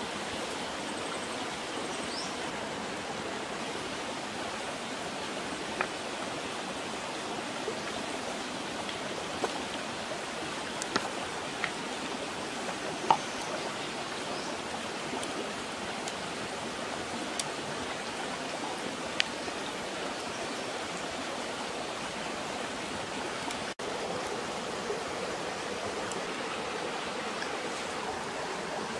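Steady rush of a shallow river running over rocks, with a few sharp crackles from a small wood fire scattered through it.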